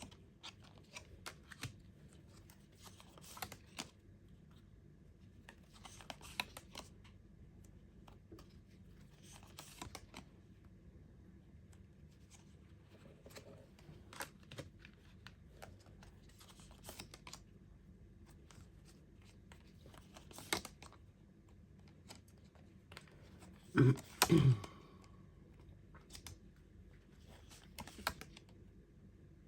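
Tarot cards being handled and laid out: soft scattered clicks and rustles of cards, with a brief louder double sound about three quarters of the way in.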